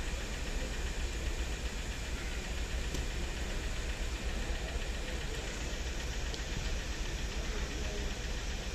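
Motorcycle engines idling steadily just after a cold start in near-freezing air, a continuous low rumble.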